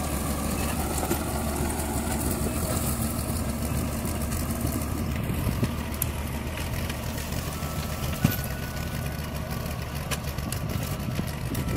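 Farm tractor engine running steadily while it drives a rotary tiller through garden soil, with one sharp click about eight seconds in.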